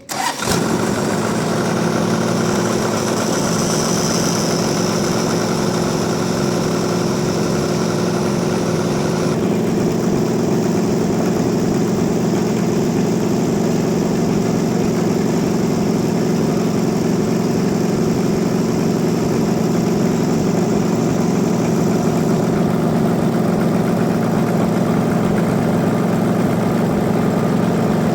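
Sawmill engine coming on abruptly and then running steadily at a constant speed, with its low, even drone unchanged throughout.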